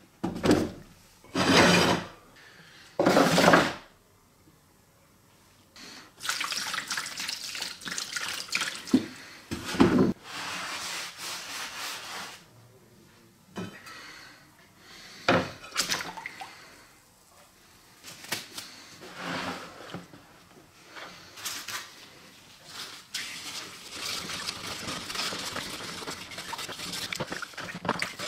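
Liquid poured and splashing into a plastic tray, in a few short loud rushes near the start and a longer pour after about six seconds. Near the end a steel-wool scourer scrubs a wet metal sign under the liquid, a steady scratching.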